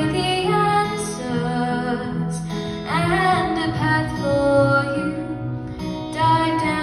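Live acoustic guitar strummed under a girl's singing voice holding long notes, with a sliding vocal note about three seconds in.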